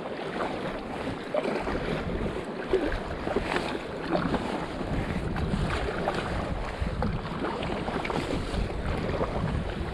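Fast river water rushing around a stand-up paddleboard, with wind rumbling on the microphone and small irregular splashes from the paddle strokes.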